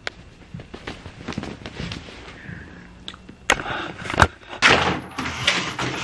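Handling noises of a person getting up and moving about: a run of small clicks and rustles, a sharp knock about three and a half seconds in and a louder one just after four seconds, then about half a second of rustling.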